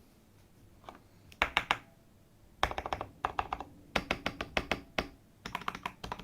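Typing on a mechanical keyboard fitted with frankenswitches (KTT Wine stems in Gateron housings), an aluminium plate, a plastic case and cherry-profile keycaps. The keystrokes come in short quick runs of clicks with brief pauses between them: a lone stroke about a second in, then four runs.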